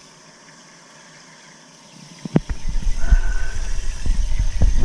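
Hand shower running water onto the tiled shower floor, a faint steady hiss. A little over two seconds in, loud rumbling and irregular knocks begin as the camera is picked up and carried.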